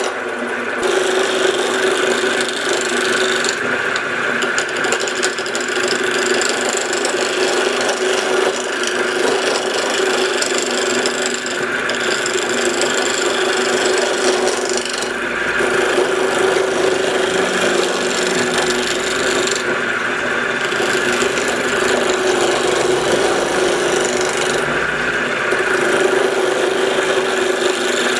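Wood lathe running with a roughing gouge cutting a spinning, not yet round wooden blank: a continuous scraping over the steady hum of the lathe. The high scraping drops away briefly a few times as the tool comes off the wood. The gouge is dull: it is sharpened right after.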